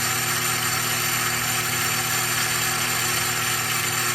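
A motor-driven machine running steadily, with a constant hum and a hiss and no change in load.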